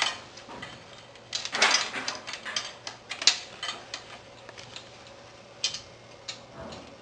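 Metal rack parts and a bolt clinking and rattling as they are handled and fitted, with a short burst of rattling about a second and a half in and a few single sharp clinks after it.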